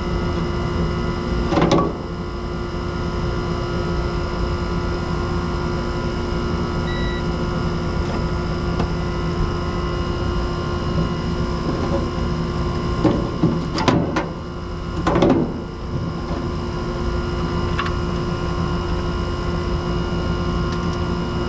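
Air-conditioner condenser unit humming steadily with several steady tones, while the compressor waits for its thermal overload switch to cool down and reset. A few brief knocks come about two seconds in and again between thirteen and fifteen seconds in.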